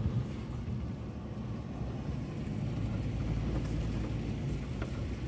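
Vehicle engine and road noise heard from inside the cab while driving slowly: a steady low rumble that swells a little in the middle.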